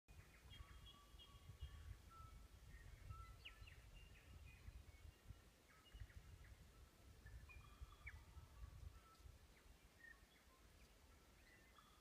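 Faint chorus of New Zealand bush birds: many short whistled notes and chirps overlapping throughout, over a low rumble that fades about nine seconds in.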